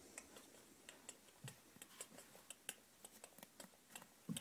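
Near silence, with faint, irregular small clicks scattered throughout.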